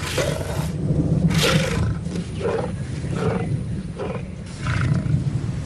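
Lion roaring: a series of about six heavy grunting roars, coming closer together toward the end.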